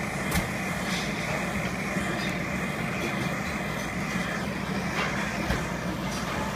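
Handheld butane kitchen torch burning steadily as it sears miso-glazed salmon nigiri, a constant rushing hiss, with a few light clicks.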